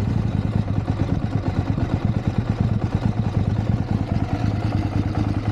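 KTM 790's parallel-twin engine running at a low, uneven idle just after catching. The owner takes it for firing on one cylinder, a fault he puts down to the spark plug.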